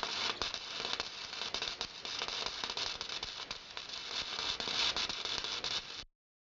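Homemade semi-automatic MIG welder's arc crackling steadily during a test weld, cutting off suddenly near the end.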